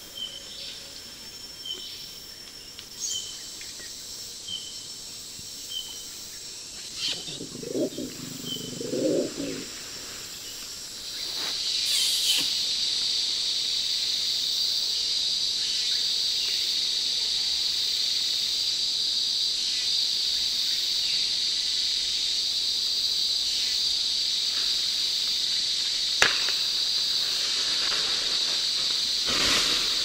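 Tropical rainforest insects: a short high chirp repeats about every two-thirds of a second over a faint steady whine. About eleven seconds in, a loud, steady high insect drone swells up and carries on as the loudest sound. Shortly before the drone, a brief lower call-like sound.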